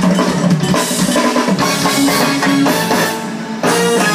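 Live band music with drum kit and trumpet played loud through a home theatre system's large floor speakers, heard in the room. The music dips briefly a little after three seconds, then comes back up.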